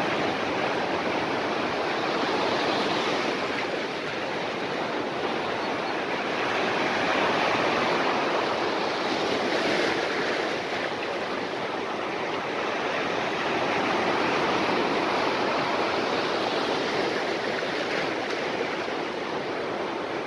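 Ocean surf breaking and washing up the shallows: a steady rush that swells and eases every few seconds.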